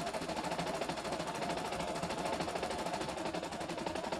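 CNY E960 computerized embroidery machine stitching, its needle mechanism clattering in a rapid, even rhythm.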